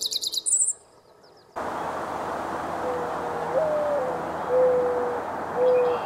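Mourning dove singing its cooing song: a soft coo that rises and falls, then two long, level, low coos, over a steady background hiss. It opens with the last second of a guitar jingle with high chirps.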